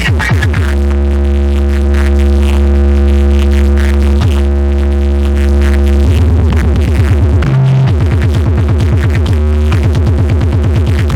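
Electronic dance music with deep, long-held bass notes played loud through a car-audio style sound system with 18-inch subwoofers.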